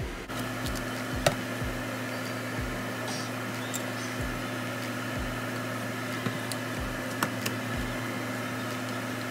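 A steady electric hum from a kitchen appliance, with soft low thumps roughly once a second and two sharp clicks, the louder one about a second in.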